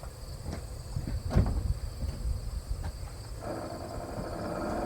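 A few clicks and knocks, the loudest just over a second in. About three and a half seconds in, the 1990 Chevy C1500's electric windshield washer pump starts abruptly and runs with a steady whine. The pump switching itself on is the sign of a wiring fault in the truck's electrics.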